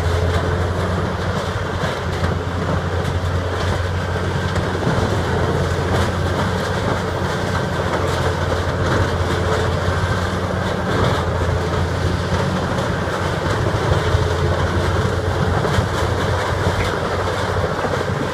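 Terex TBG640 horizontal grinder running under load, chewing up tree stumps and roots: a steady low engine drone under a dense, noisy grinding clatter with frequent short knocks of wood being broken.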